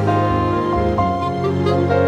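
Background music: held notes over a steady low bass, the chord changing about a second in.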